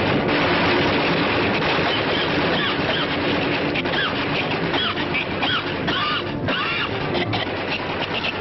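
Cartoon soundtrack: a dense, noisy clatter like a sustained burst of gunfire over orchestral music. From about two and a half seconds in, it is joined by repeated short, high whistling squeals that slide up and down.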